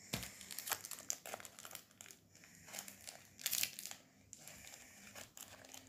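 A small foil trading-card packet crinkling in a child's hands as it is opened, in irregular crackly bursts that thin out after about four seconds.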